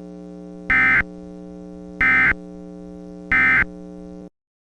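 Three short bursts of EAS (SAME) digital data tones about a second apart, the end-of-message signal that closes a weather radio alert, over a steady electrical hum. The hum cuts off suddenly near the end.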